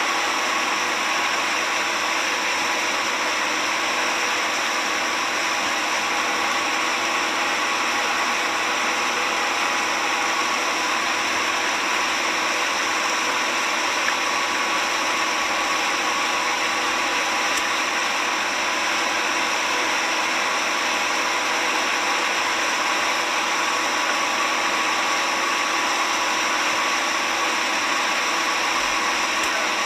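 Engine running steadily: a constant hum with a strong even hiss, unchanging throughout, with one small tick about halfway through.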